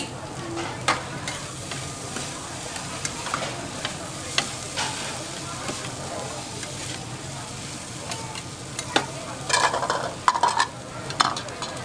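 Wide flat noodles sizzling on a steel teppanyaki griddle while two metal spatulas scrape and clack against the plate, lifting and tossing them. The clatter grows busier about three-quarters of the way in.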